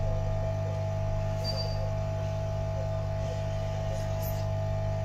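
Steady electrical hum with a constant mid-pitched tone over it, and a faint short high beep about a second and a half in.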